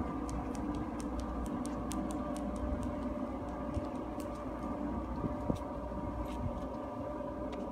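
Steady mechanical drone with a low rumble, like an engine or motor running, with a scatter of faint short clicks over it in the first few seconds.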